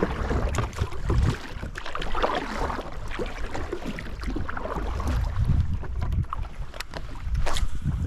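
Wind buffeting the microphone over water splashing and sloshing against a fishing kayak, with a few sharp clicks, the clearest near the end.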